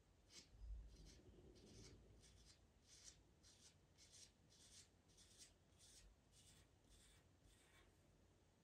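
Pastel pencil scratching over Pastelmat paper in short, quick strokes, about two a second. There is a soft low thump about a second in.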